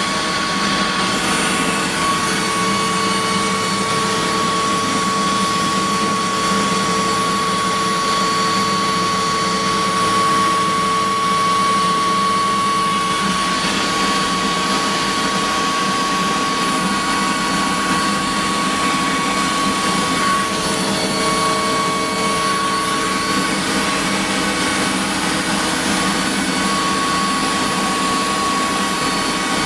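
Mi-2 helicopter's GTD-350 gas-turbine engine running steadily, heard from inside the cockpit: a loud, even turbine noise with a constant high whine.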